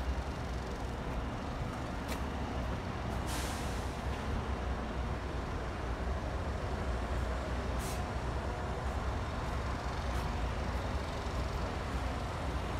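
Steady low rumble of large vehicles idling, with a sharp hiss of released air about three seconds in and a shorter one near eight seconds, typical of truck or bus air brakes.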